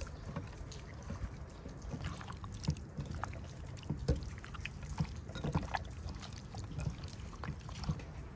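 Hands squishing and turning raw chicken pieces and sliced onion in a bowl of marinade: irregular wet squelches and soft clicks.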